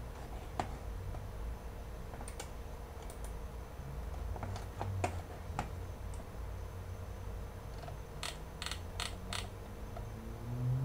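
Scattered sharp clicks from a computer being operated, then a quick run of about five clicks near the end, over a steady low hum.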